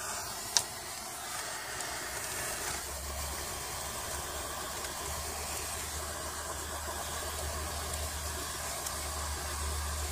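Butane torch flame hissing steadily while it heats heat-shrink tubing over a crimped copper lug on a battery cable. A single sharp click comes about half a second in.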